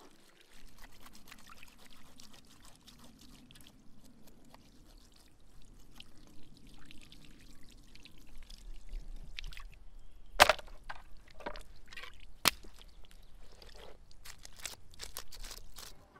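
Knife cutting and cleaning a raw fish on a stone slab: a run of wet scraping and small clicks, with two sharp knocks about ten and twelve and a half seconds in.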